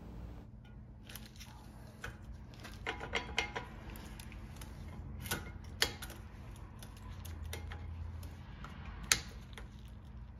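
Light metallic clicks and taps of rear brake pads being squeezed and worked loose in a Porsche 993 brake caliper, pushing its pistons back. A handful of scattered knocks, the sharpest one about nine seconds in.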